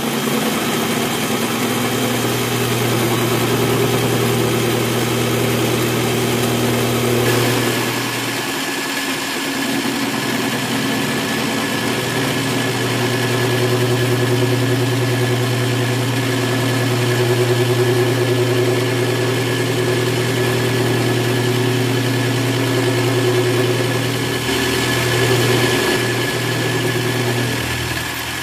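Bench drill press motor running steadily with an end mill in its chuck, milling a slot in an aluminium bar. A higher tone joins about seven seconds in, and the low hum dips for a few seconds after that before it steadies again.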